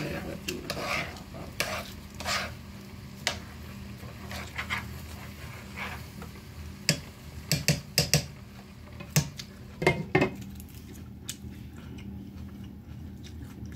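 Plastic fork scraping and clicking against a clear plastic salad container as salad is forked up, with sharp clicks clustered about seven to ten seconds in. A steady low hum runs underneath.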